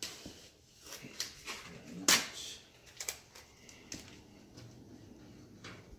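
Blue painter's tape being pulled off the roll, torn and pressed down: a series of short rips and handling clicks, the loudest and longest rip about two seconds in.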